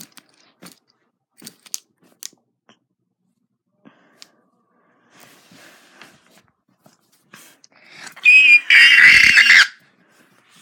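Faint scattered clicks and rustles of handling, then, about eight seconds in, a loud, high-pitched, wavering shriek lasting about a second and a half, with a brief low thump in the middle of it.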